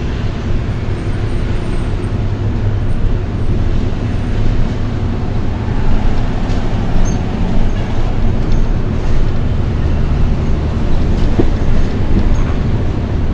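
A vehicle driving, with a steady, loud low rumble of engine and road noise.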